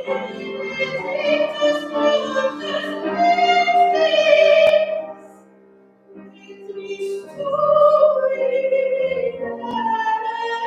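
A solo voice singing a slow sacred song over a steady held low note. The phrase ends about halfway through, there is a short pause, and the singing resumes.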